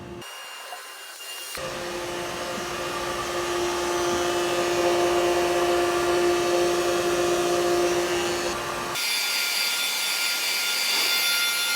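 Oil-sealed vacuum pump running with a steady, loud hum, heard in short clips that cut off abruptly. The hum grows louder over the first few seconds, and after the last cut, a few seconds before the end, it turns into a higher-pitched whine.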